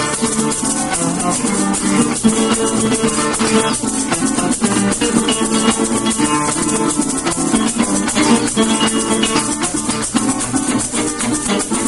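Venezuelan folk music played on plucked string instruments, such as bandola and cuatro, over steadily shaken maracas, keeping a fast, even rhythm with no singing.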